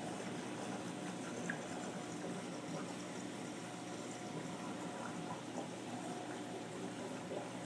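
Steady bubbling and trickling water of a running saltwater reef aquarium, with a faint steady hum under it and a few small clicks.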